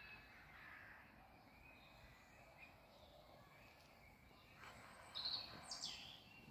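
Quiet outdoor ambience with faint bird calls. A few louder, higher calls come about five seconds in, one sliding down in pitch.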